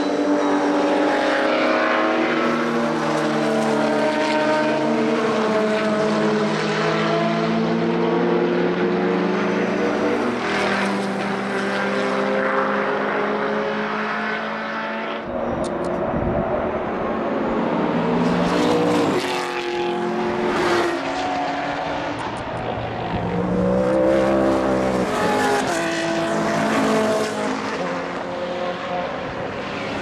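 Several racing cars' engines passing at speed one after another, their notes falling and rising through gear changes and as they go by, often more than one engine at once. About halfway through the sound changes abruptly, and a low rumble of wind buffeting the microphone runs under the engines from then on.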